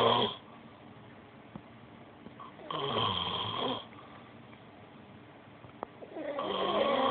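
Snoring in slow, regular snores, one about every three and a half seconds: the tail of one at the start, a full snore about three seconds in, and the next building near the end.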